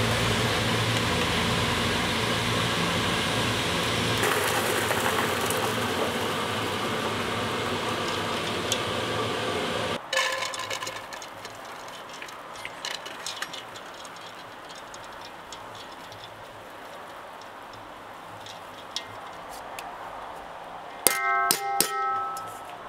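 A steady cooking hiss from the stove for about ten seconds, then it stops abruptly. After a few light clinks, metal cookware clangs several times near the end, each strike ringing briefly.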